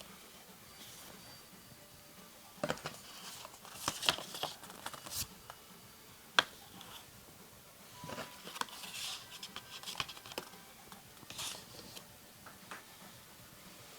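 Packaging being handled and opened by hand: intermittent rustling, scraping and light tapping, with one sharp click about six seconds in.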